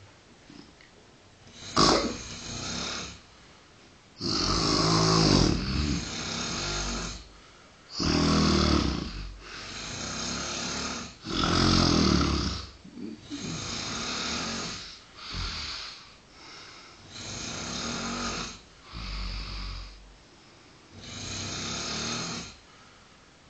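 Two men snoring in their sleep: loud, rasping snores of uneven length, about one every two seconds, some short and some drawn out, at times overlapping.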